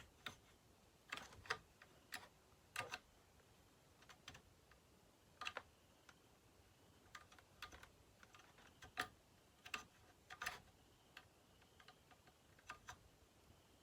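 Scattered light clicks and taps of small chainsaw parts and tools being handled during reassembly, irregular and a second or so apart, with near silence between them.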